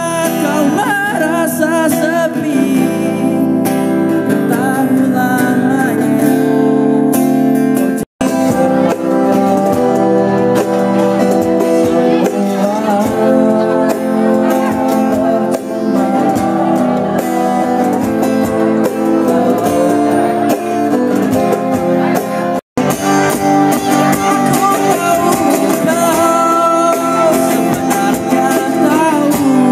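A voice singing over acoustic guitar. Twice the sound cuts out for a split second, about eight seconds in and again past twenty seconds.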